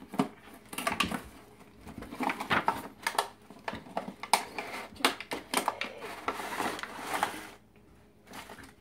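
Handling noises: paper and plastic packaging from a science kit rustling and crinkling, with irregular small clicks and knocks on a countertop. The sounds fade off near the end.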